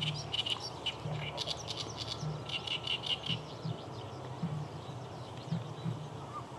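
Oriental reed warbler singing: bursts of rapid, repeated notes, loudest in the first three and a half seconds and fainter after. A low, repeated pulsing sound runs underneath.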